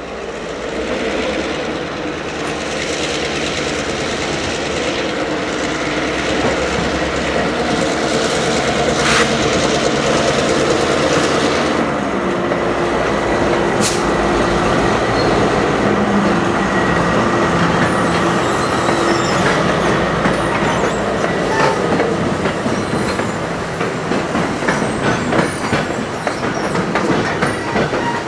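Metro-North passenger train rolling past close by: a steady diesel drone under the rumble of wheels on rail, getting louder in the first couple of seconds. In the last few seconds the wheels click quickly and sharply over rail joints.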